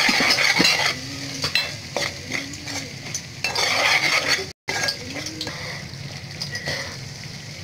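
A metal spoon stirring and scraping a thick masala paste around a metal pot, with clinks against the pot and the paste sizzling in hot oil on a low flame. The sizzle is loudest in the first second and then settles lower.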